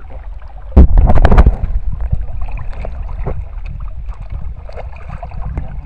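Water sloshing and splashing around the legs of someone wading in a shallow river, with wind rumbling on the microphone. A loud burst of splashing and knocks comes about a second in.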